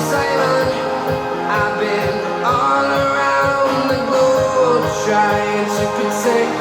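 A pop song with singing and a steady beat, played through Heco Libero loudspeakers and picked up by a phone's microphone.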